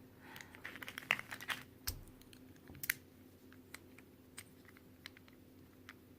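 Loose plastic pieces of a disassembled Qiyi Square-1 puzzle cube clicking and clacking against each other as they are handled. The clicks are quick and faint, with a soft knock about two seconds in, and thin out to a few scattered clicks after about three seconds.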